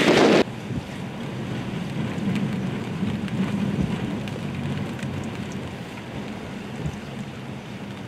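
Loud gusting wind on the microphone, cut off abruptly about half a second in. Then a steady low rumble of wind and storm-driven lake waves breaking over a rock breakwater, with a faint hiss above it.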